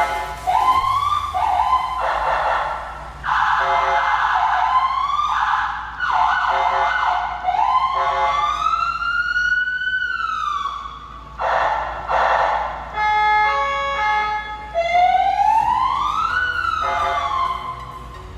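Landun CJB200HS electronic siren demonstrating its tones: quick chirps and yelps, two slow wails that rise and fall, one past the middle and one near the end, and between them a stretch of quick stepped tones.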